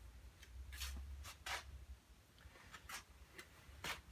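Faint, short scratchy swishes of a paintbrush drawn across watercolour paper, several strokes about a second apart, over a low steady hum.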